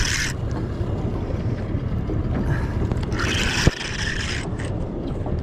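Steady low rumble of wind and water around a small drifting boat, with two bursts of higher hiss, one at the start and one about three seconds in, and a single sharp click about three and a half seconds in.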